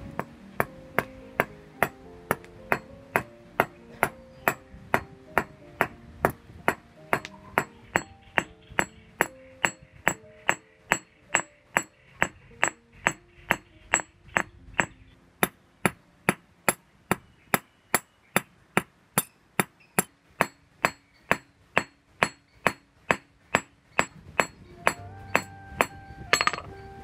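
Small sledge hammer striking a steel rod on a steel plate anvil: a steady, even run of sharp metal clangs, about two blows a second, as the screwdriver blank is beaten into shape. Background music plays underneath.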